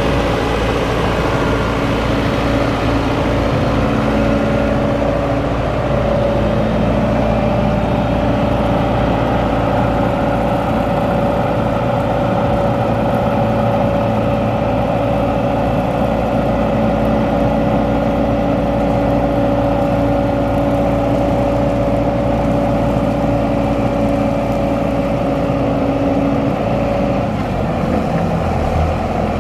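John Deere 6310 tractor's 4.5-litre four-cylinder diesel engine running steadily, with a steady whine over the engine note that drops out near the end.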